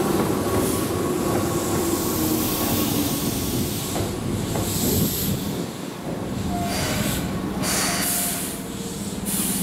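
Keihan 6000 series electric train pulling into the platform and slowing to a stop: a low motor whine falls in pitch over the first few seconds, then a few short air hisses from the brakes, with a steady low hum in the second half.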